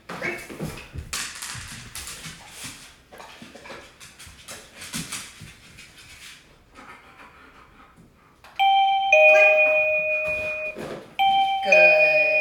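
A wireless doorbell chime plays its two-note ding-dong twice, about two and a half seconds apart, in the second half. Before it come scattered light clatters and rustles.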